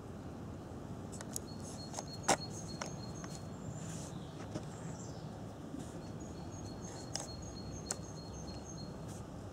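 Outdoor background: a bird chirping in two runs of quick, high repeated notes over a low steady rumble, with a few faint clicks, the sharpest about two seconds in.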